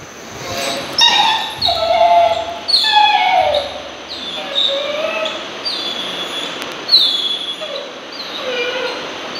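Dog whining again and again: a string of short, high-pitched whimpers and yips, most of them falling in pitch.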